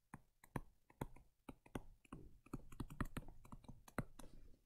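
Faint, irregular clicks and taps from handwriting a word on a computer screen with a pen input device, one tap after another as the letters go down.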